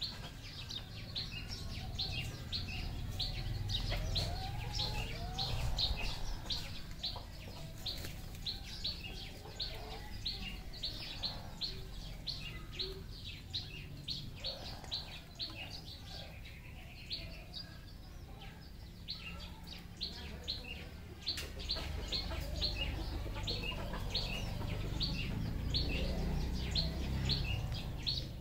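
Bird chirping in a fast, even series of short high chirps, about three or four a second, over a low rumble that swells twice, around the start and near the end.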